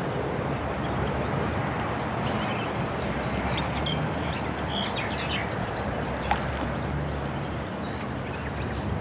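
A few short, high bird calls, scattered around the middle and near the end, over a steady low rumble with a faint hum. A single sharp click about six seconds in.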